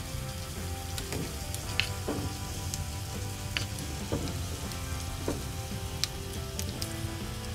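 Mushrooms frying in a tiny pan on a miniature toy stove: a steady sizzle with scattered small crackles and pops over a low hum.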